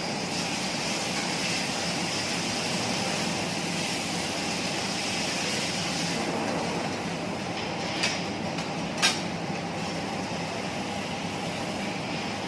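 Steady sizzling of food cooking on a teppanyaki griddle, with two sharp metal clinks about eight and nine seconds in, the second louder.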